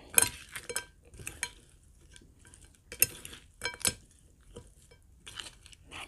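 Metal cutlery tossing a mango and crab salad in a ceramic bowl: irregular sharp clinks of metal against the bowl, with soft sounds of the salad being mixed in between.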